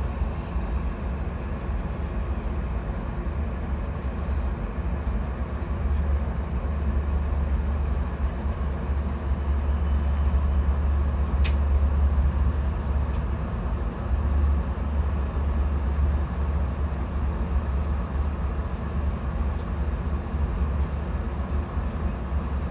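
Steady low rumble heard from inside a passenger train car, swelling slightly in the middle, with one faint click about eleven and a half seconds in.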